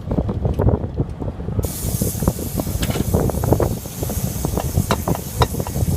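Heavy machinery running with a dense low rumble and rapid irregular knocks and clatter, joined suddenly about a second and a half in by a steady hiss.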